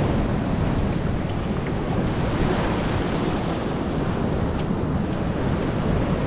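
Ocean surf breaking and washing up the sand, heard as a steady noise, with wind buffeting the microphone.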